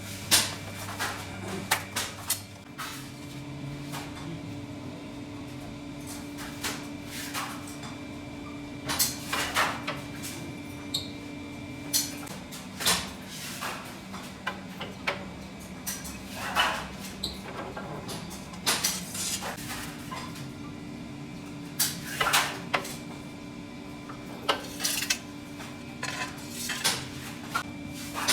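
Irregular metallic clanks and knocks of sheet-metal stove parts being handled and struck, some single and some in quick clusters, over a steady machine hum.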